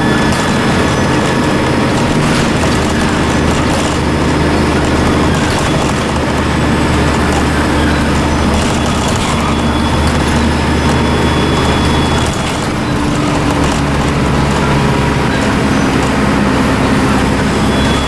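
Dennis Trident II double-decker bus's diesel engine running, with a thin high turbo whistle held over the engine note. About twelve seconds in the level dips briefly and the engine note changes.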